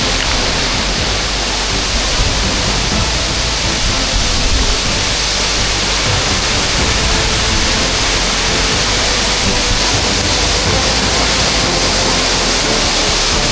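Waterfall rushing close by: a steady, dense hiss of falling water that holds an even level throughout.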